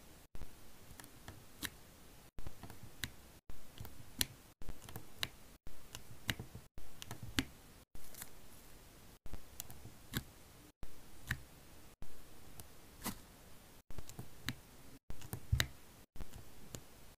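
Diamond painting drill pen tapping resin drills down onto the sticky canvas: small sharp clicks and soft taps, two or three at a time, cut up by short dropouts about once a second.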